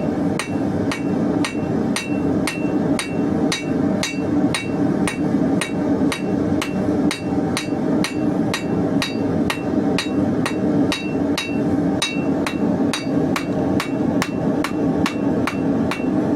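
Hammer blows flattening a piece of hot square steel bar, a steady run of about three strikes a second, each with a short metallic ring.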